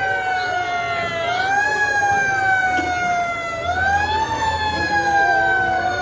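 Fire truck siren wailing, its pitch rising quickly about a second in and again near four seconds in, then sinking slowly after each rise.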